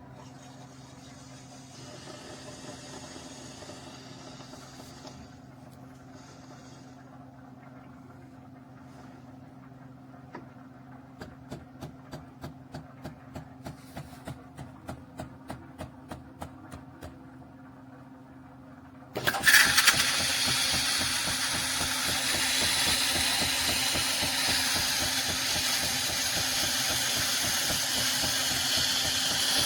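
Philips 4400 Series LatteGo automatic espresso machine working through a cappuccino cycle: a low steady hum, then a run of even clicks at about two or three a second, then about two-thirds of the way through a much louder continuous rushing noise starts suddenly and keeps going.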